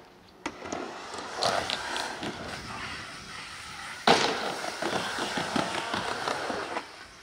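Skateboard wheels rolling down a wooden ramp, with a sharp clack about four seconds in.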